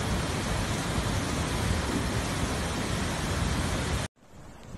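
Flash-flood torrent of muddy water rushing, a loud steady roar. About four seconds in it cuts off suddenly to a much quieter rush of water.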